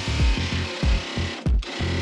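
Background music with a steady beat, about three beats a second, that drops out briefly about one and a half seconds in.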